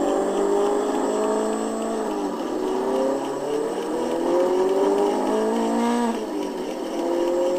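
Electronic siren sound effect of the RS-1 toy, through its small built-in speaker; the title calls it noisy. Several tones slowly rise in pitch together, drop back about two seconds in and again about six seconds in, then climb again.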